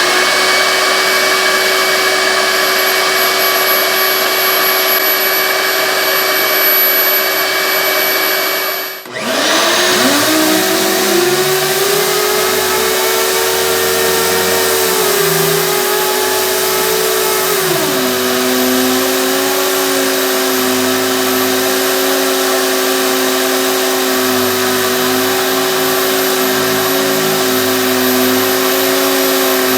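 Shop vac running steadily, drawing through the hose of a 3M 28502 pneumatic DA vacuum sander. About a third of the way in the sound cuts out for a moment, then the air-driven random orbital sander starts with a rising whine that holds and then settles to a lower pitch about halfway through, over the steady vacuum noise.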